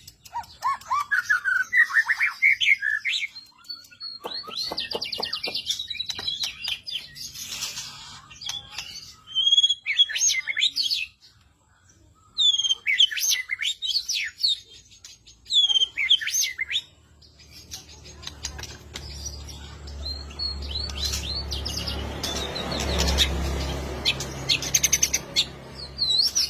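Songbirds chirping and singing: quick high chirps, whistled slides and fast rattling trills in short phrases with brief pauses. From about 18 s a steady hiss and low hum build up under the calls.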